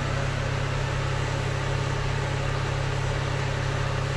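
Steady low hum of an engine idling, even in level throughout.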